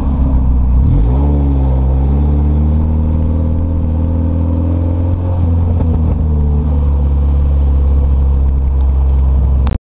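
Mazda Miata's four-cylinder engine running at a steady low speed, loud, its pitch dipping and climbing back about a second in.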